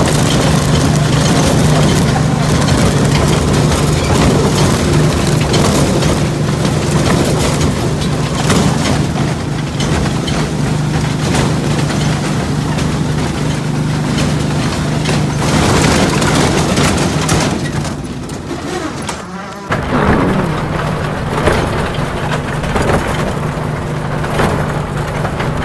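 A ride-on miniature backyard train's engine running steadily as the train rolls along the track. It has a constant low hum, and the sound drops away briefly about three quarters of the way through before picking up again.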